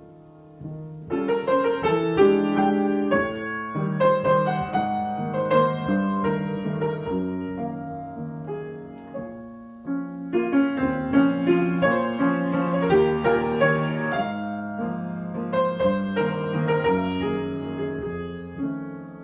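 Solo piano improvisation: chords and melody lines in two phrases, the first starting about a second in and dying away, the second entering about halfway through and fading near the end.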